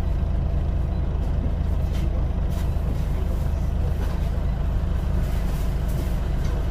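Scania OmniCity single-deck bus's diesel engine and running noise heard from inside the passenger saloon: a steady low rumble with a few light rattles.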